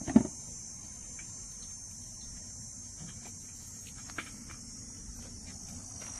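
Steady high-pitched chorus of insects chirring. A short thump comes about a quarter of a second in, and a faint click comes around four seconds.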